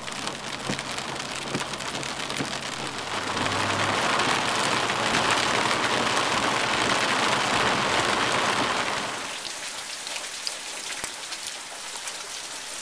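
Heavy rain coming down, a dense steady patter and hiss. It swells louder about a third of the way in and eases back down about two-thirds through.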